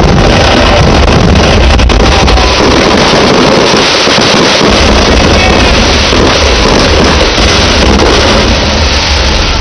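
Fireworks salute at close range: a loud, continuous rumbling roar with no separate bangs standing out, overloading the microphone.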